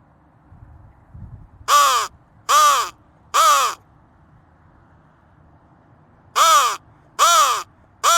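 Flextone Lightning Crow call blown in two sets of three loud caws, each caw rising then falling in pitch.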